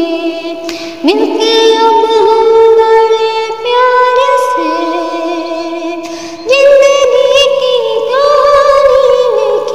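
A woman singing an old Hindi film song in long held notes that waver, with new phrases starting about a second, three and a half seconds and six and a half seconds in.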